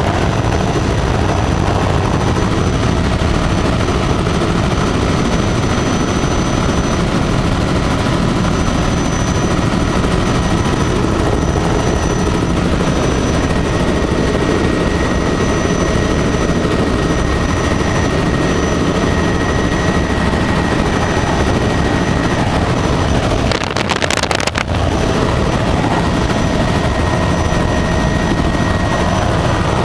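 A helicopter in flight, heard from inside the cabin: a loud, steady rotor and engine drone with thin, steady high-pitched whines over it. There is a brief scuffle about 24 seconds in.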